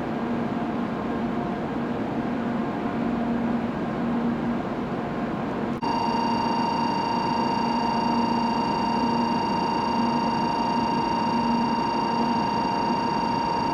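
Platform hum, then about six seconds in a steady electronic warning tone switches on with a click and holds without a break: the station's alert for a Shinkansen train approaching the platform.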